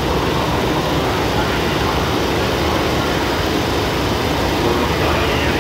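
Steady diesel engine drone of a passenger train standing at the platform, its engines idling with a low, even hum.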